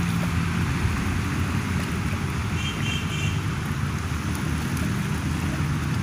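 Steady outdoor rumble and hiss of wind on the phone's microphone, with a brief high chirping about two and a half seconds in.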